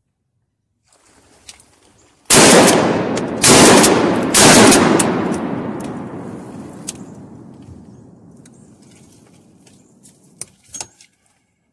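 Three shotgun shots fired about a second apart, each reaching across the whole range from low to high. Their echo rolls on and fades out over several seconds. A few faint clicks follow near the end.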